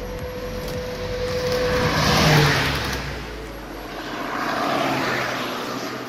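Two road vehicles passing in turn, each building up and fading away, the first and louder about two seconds in, the second near five seconds.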